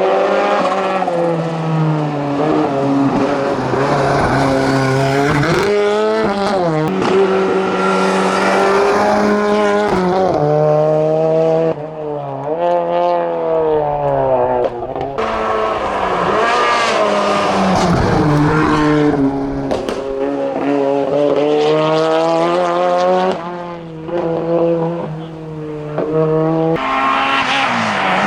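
Rally-prepared race car's engine at full throttle on a hillclimb, revs climbing hard and dropping back over and over as the driver shifts gears, lifts and brakes for corners.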